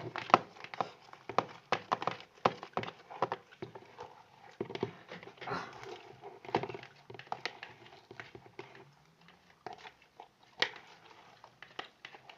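Sticky, half-set glue-and-borax slime being kneaded and stirred, giving a dense run of irregular wet clicks and squelches.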